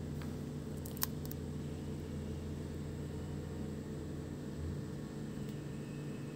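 Steady low machine hum with a faint hiss, and a single light click about a second in.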